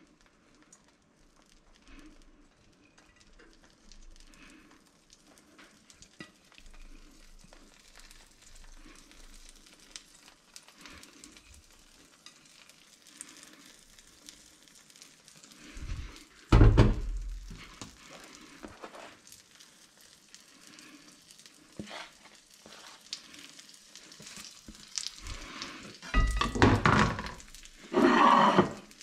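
Beaten egg frying gently in an oiled frying pan, a quiet steady sizzle, while shredded cheese is scattered over it by hand. A loud thud comes a little past the middle, and loud clattering and handling noises come near the end.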